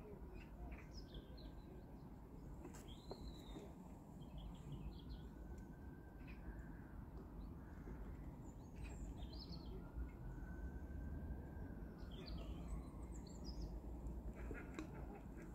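Small birds chirping and trilling now and then, faint, over a steady low background rumble.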